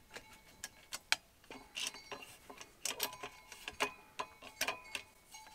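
Black steel chimney pipe sections and couplings clinking and tapping as they are handled and fitted together: a scatter of sharp clicks and light knocks, some with a short metallic ring, the sharpest about a second in.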